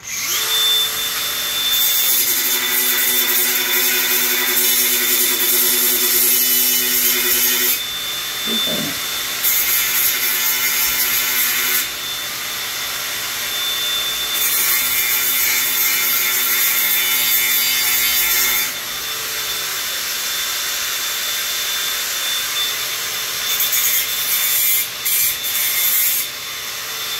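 Hand-held electric power tool cleaning off the inside of frame pieces: the motor runs with a steady high whine, and in stretches of a few seconds at a time it bites into the work with a harsh rubbing, scraping noise, easing off in between.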